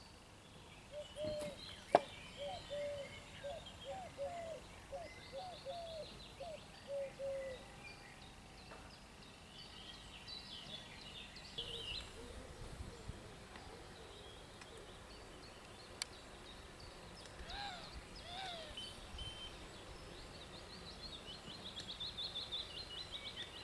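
Lakeside birdsong: a run of short low notes over the first several seconds, several high trills, and more calls later. A sharp click about two seconds in is the loudest sound.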